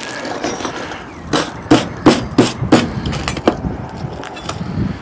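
A run of about six sharp knocks, roughly three a second, then a few lighter clicks near the end: cleaning hardened, failed forge-welding flux off a steel bar.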